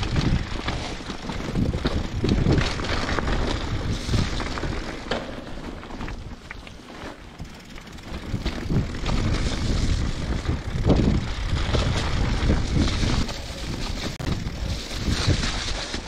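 Mountain bike riding on a trail, with wind buffeting the microphone in a heavy, uneven rumble over the tyre and frame noise.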